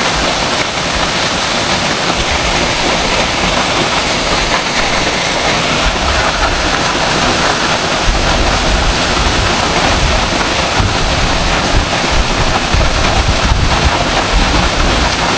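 Waiau Falls waterfall rushing: a steady, even wash of falling water. From about six seconds in, wind buffets the microphone with an uneven low rumble.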